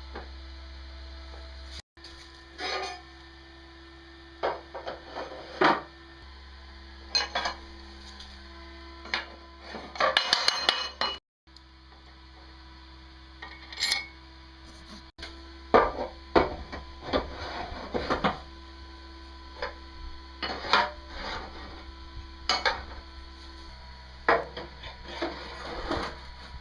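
Small metal parts clinking and clanking as they are handled and fitted together by hand, in scattered separate knocks over a faint steady hum.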